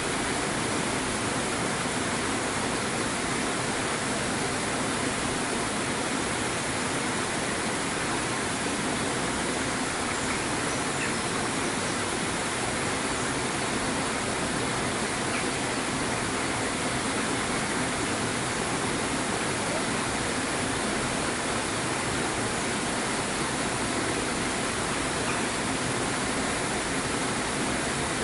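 Steady rush of falling water, an even hiss that does not change, with no duck calls standing out.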